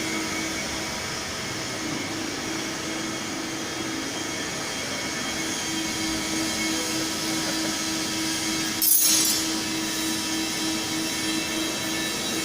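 Hartford CNC milling machine running a milling job, a steady machine noise with several steady whining tones. A brief high hiss comes about nine seconds in.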